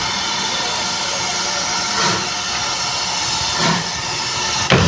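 GWR 2251 class 0-6-0 steam locomotive No. 3205 starting its train away: a steady hiss of steam with three slow, heavy exhaust beats, the last and loudest near the end.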